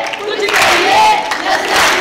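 Many young voices shouting and cheering together, with several drawn-out shouts standing out above the crowd noise.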